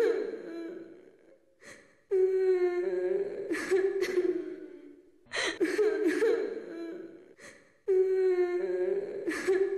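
Mobile phone ringing with an eerie ringtone: a recorded high voice phrase that starts over about every three seconds.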